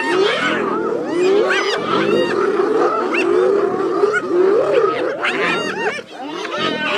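A crowd of wild animals calling at once: many overlapping short calls that rise and fall in pitch, with a brief lull about six seconds in.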